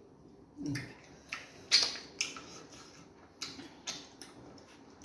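Eating noises at a meal: an irregular string of short, sharp clicks, the loudest a little under two seconds in.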